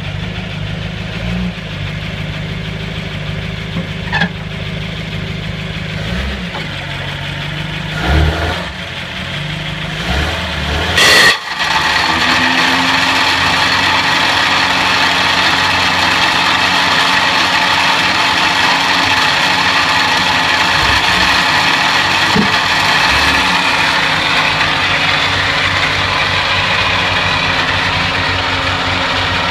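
1950 Buick straight-eight engine running with a grinding, clicking noise. About eleven seconds in, the sound changes abruptly: the low rumble drops away and a louder, steadier, higher-pitched running sound takes over.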